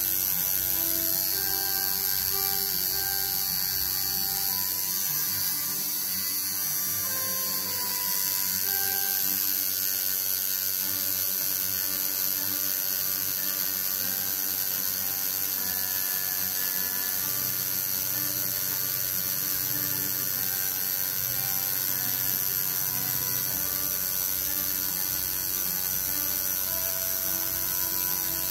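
Home-rebuilt coil tattoo machine buzzing steadily as it drives a single needle into skin, lining small script lettering.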